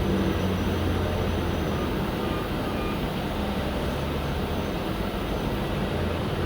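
Rear-mounted diesel engine of a Mercedes-Benz O-500M city bus running, a steady low drone with road and mechanical noise over it.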